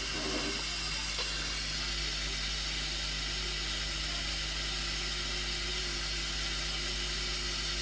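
Steady low hiss with a faint, even electrical hum underneath; no distinct events stand out.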